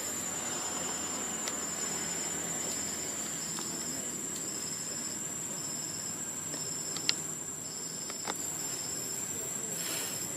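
Insects calling: a steady high-pitched buzz, with a second insect's short chirps repeating about twice a second. A few sharp clicks come about seven and eight seconds in, and a brief rustle near the end.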